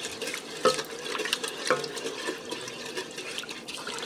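Wooden spoon stirring chicken broth thickened with flour in a stainless steel cooker pot, the liquid sloshing, with a few sharp taps of the spoon against the pot.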